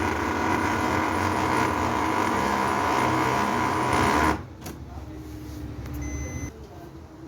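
Ricoh Aficio MP 301SPF copier running with a loud mechanical noise and a steady whine, cutting off suddenly about four seconds in and leaving quieter machine sounds. The noise comes from the charge roller unit; the technician suspects its drive gear, worn or dirty teeth, since it goes away when that unit is taken out.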